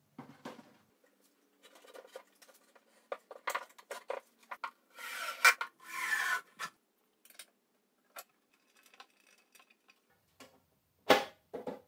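Scattered metal clicks and knocks from handling a Hafco BD 325 bench drill press. A louder rasping from about five to six and a half seconds fits the chuck key turning in the chuck. One sharp clack comes near the end.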